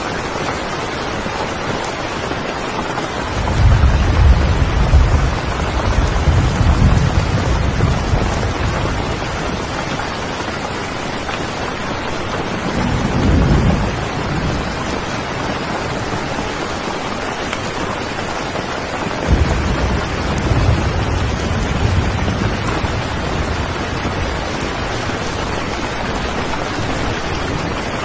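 Steady rain with thunder rumbling three times: a long roll starting about three seconds in, a shorter one near the middle, and another starting about two-thirds of the way through.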